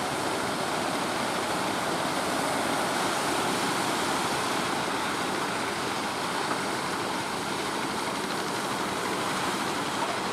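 Steady rushing noise of surf and wind along the shore, even and unbroken with no distinct engine note or rhythm.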